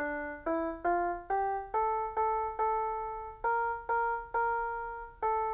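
Electronic keyboard on a piano sound playing a single-line melody: a short rising run of four notes, then one higher note struck again and again at an even pace, about a dozen notes in all.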